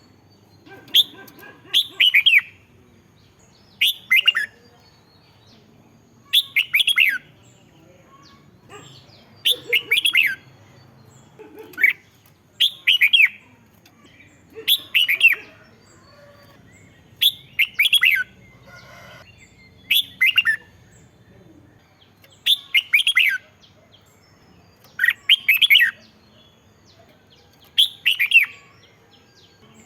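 Red-whiskered bulbul singing: short, quick warbled phrases, each under a second, repeated every two seconds or so.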